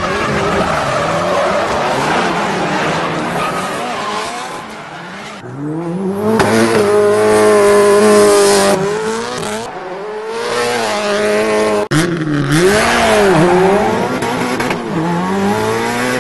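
Racing-car sound effects: an engine revving with its pitch swooping up and down, mixed with screeching, skidding tyres. The sound breaks off abruptly a few times as the clips change.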